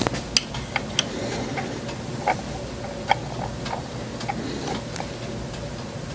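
Irregular light metal clicks and taps of small parts being handled and fitted on a model five-cylinder radial engine, with a few sharper knocks in the first half. A faint steady hum runs underneath.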